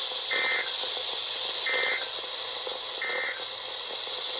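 NOAA Weather Radio playing the SAME end-of-message signal, which marks the end of the alert broadcast: three short bursts of digital data tone about 1.3 seconds apart, over steady radio hiss.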